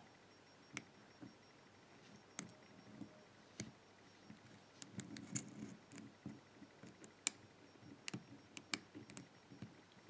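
Lock pick working the pin stack of an old five-pin BKS rim cylinder: faint, irregular metallic clicks as pins drop while other pins are being set. Soft handling noise from the fingers on the lock comes and goes around the middle.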